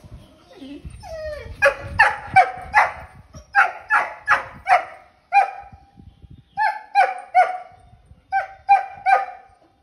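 German Shepherd puppy barking: short, high barks in quick runs of three to six, after a short whine about a second in.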